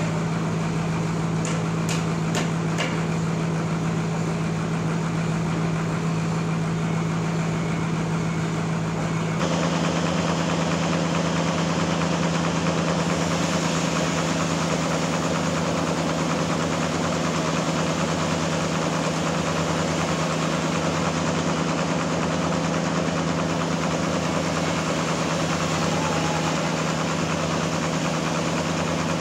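Sawmill engine running steadily with an even hum. About nine seconds in the sound turns abruptly louder and hissier and stays that way.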